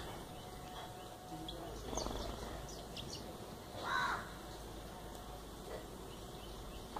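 House sparrows chirping: a few short, high chirps, then one louder, lower call about four seconds in.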